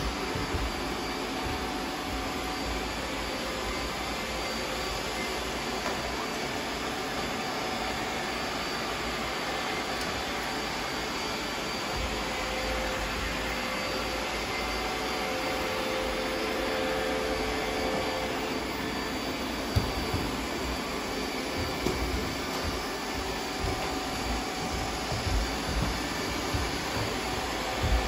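Several robot vacuum cleaners running at once on a hard floor, a steady whir of suction motors and brushes. A few sharp knocks stand out in the second half.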